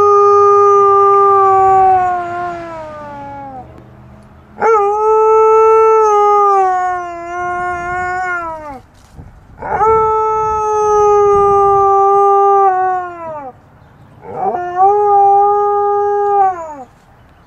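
Alaskan Malamute howling, copying fire-truck sirens: one long howl trailing off and falling in pitch, then three more long howls, each sliding quickly up at the start, holding a steady pitch and dropping away at the end.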